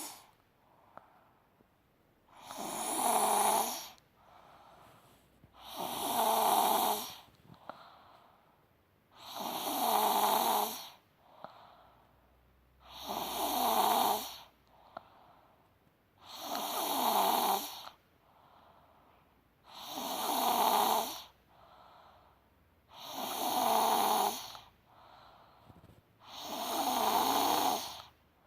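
Snoring in a steady rhythm: eight loud, rasping snores about every three and a half seconds, each about a second and a half long, with a quieter breath between them.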